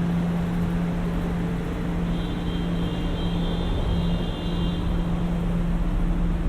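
A steady low-pitched hum drones continuously over the wash of city noise. It is the mysterious 'sky sound' that the recording was made to capture. From about two seconds in, faint thin high tones sound for around three seconds.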